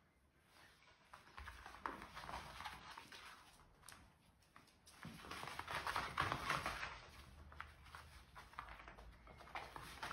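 Two dogs, one a miniature dachshund, play-wrestling: scuffling and paws scrabbling and pattering on a rug and wooden floor, loudest about six seconds in.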